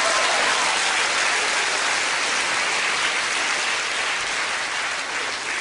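Large theatre audience applauding a joke: dense, steady clapping that eases off slightly near the end.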